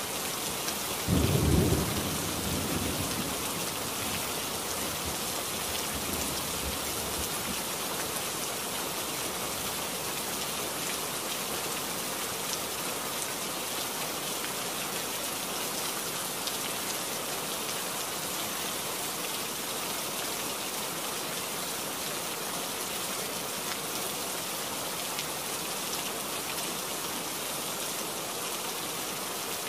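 Steady heavy rain, with a low clap of thunder about a second in that rolls away over the next couple of seconds.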